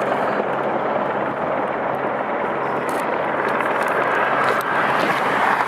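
Steady roar of road traffic on a highway bridge, with a faint low hum underneath.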